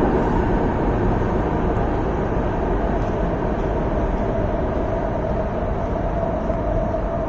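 MTR East Rail Line R-Train running away into the tunnel as an empty train after terminating. It makes a steady rumbling noise that eases off slowly, and a steady whine comes through in the second half.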